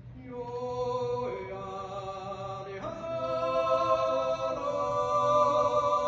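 Appenzell Zäuerli: a small men's group yodelling without words in unaccompanied close harmony. They hold long, slow chords that shift pitch three times and grow louder.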